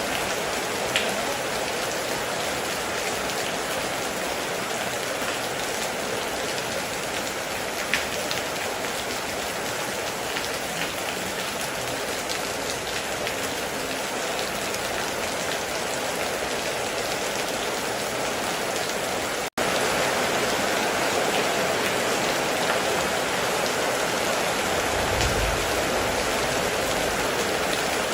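Steady heavy rain pattering on a metal roof, with a few sharper single drips. About two-thirds in it cuts out for an instant and comes back slightly louder, and a brief low rumble follows near the end.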